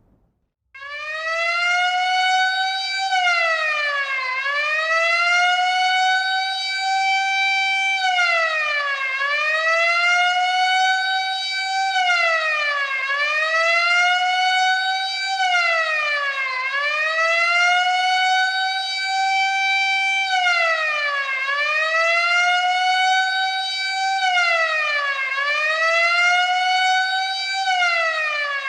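Siren sound effect wailing: a loud, shrill tone that climbs slowly in pitch and then drops sharply, repeating every few seconds. It starts about a second in.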